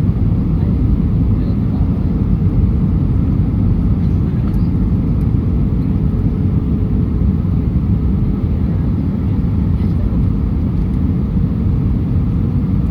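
Steady low rumble of airflow and engines inside the cabin of an Airbus A319 airliner on approach, with a faint steady hum running through it.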